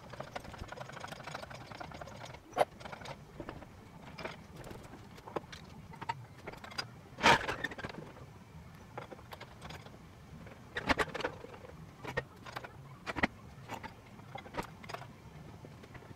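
Scattered metal clanks and knocks as an engine and gearbox hanging from a workshop engine crane are lowered and shuffled into a car's rear subframe. A light rattle runs through the first few seconds, and the loudest knock comes about seven seconds in.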